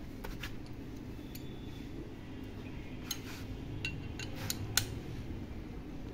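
Screwdriver and hand tools clicking and scraping against a Mahindra tractor's bare engine block and crankshaft: a scatter of short, sharp metal clinks, most of them bunched in the second half.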